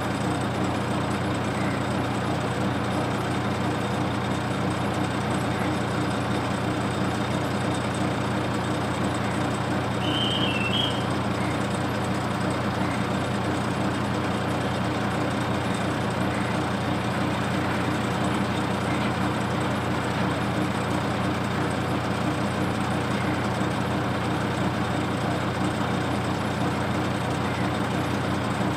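A heavy vehicle's engine running steadily, a low even hum that does not change. A brief high chirp sounds about ten seconds in.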